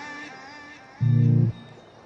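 Background music: a sustained note fading away, then a single short, low bass note about a second in.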